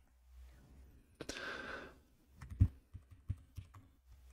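Computer keyboard keystrokes, a scattered handful of separate clicks while editing code, with a short soft hiss about a second in.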